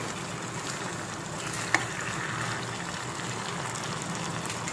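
Chicken and potato curry gravy simmering in a pan, a steady bubbling hiss, with one sharp tap of the metal spatula against the pan about two seconds in.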